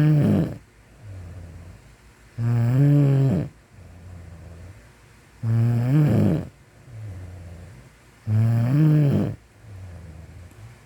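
Sleeper snoring in a steady rhythm: four loud, rattling snores, each about a second long and spaced roughly three seconds apart, with a quieter breath between each pair.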